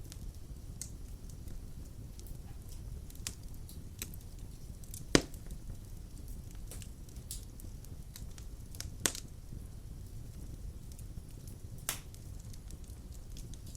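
Wood fire burning in a fireplace: a steady low rumble with scattered sharp crackles and pops, the loudest pop about five seconds in and others about nine and twelve seconds in.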